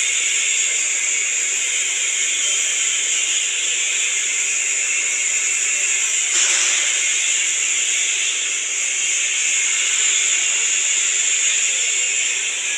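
Electric arc welding on a vertical (3G) joint: the arc gives a steady hiss that surges briefly about halfway through.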